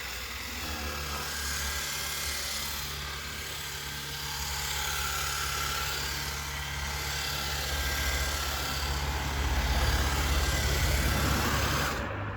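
Cordless battery-powered pressure washer's pump motor running steadily, with the hiss of water spraying through the foamer attachment while air is bled from the line. Near the end the spray cuts off suddenly.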